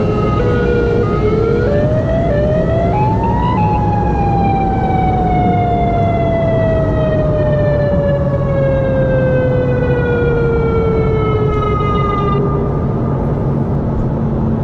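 Warning siren: its tone steps up in pitch over the first few seconds, then winds down in one long falling glide that dies away about twelve seconds in. A steady low rumble runs underneath.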